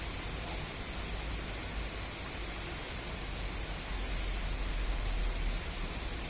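Steady rain, an even hiss, with a low rumble that swells a little about four seconds in.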